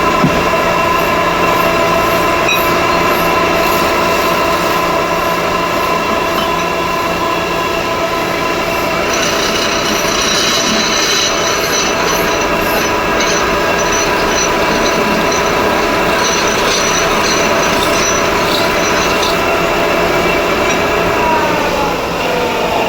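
Metal spinning lathe running steadily with a whine made of several tones. A high metal-on-metal squeal joins about nine seconds in and stops about ten seconds later, and near the end the machine's tones fall in pitch as it slows down.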